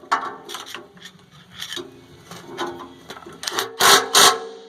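Hand tools working on the steel slide and its bolts on a roller mill: scattered scraping and metal knocks, then two loud rasping strokes about four seconds in.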